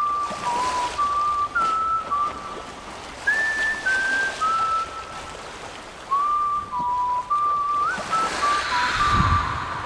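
A tune whistled in single held notes, stepping up and down with short slides between them. A rush of noise with a low rumble swells near the end.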